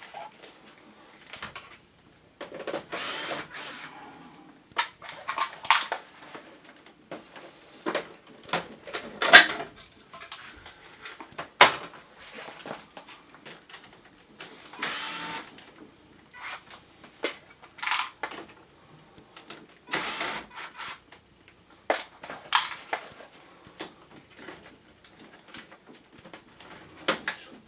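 Irregular clicks, knocks and short scrapes of hands working on an air conditioner's plastic casing and parts while taking it apart.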